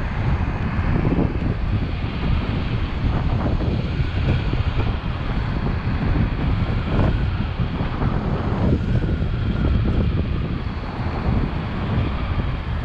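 Steady wind rushing and buffeting over a chest-mounted action camera's microphone while riding an electric scooter at speed.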